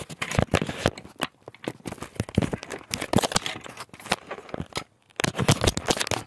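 Phone handling noise as the phone is moved and repositioned: an irregular run of scrapes, crackles and clicks rubbing right at the microphone, with a couple of short quiet gaps.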